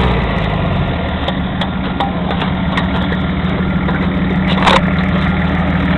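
Off-road vehicle's engine idling steadily, with a few light clicks over it.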